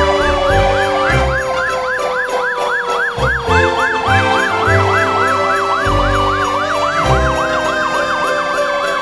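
Fire apparatus siren in a fast yelp, about four sweeps a second, with a second siren tone sliding slowly down in pitch, as the fire department procession drives past.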